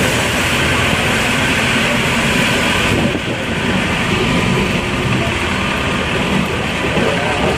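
Engine of a safari tour vehicle running steadily as it moves slowly along a dirt track, heard from inside the vehicle with a low rumble and road noise, easing slightly about three seconds in.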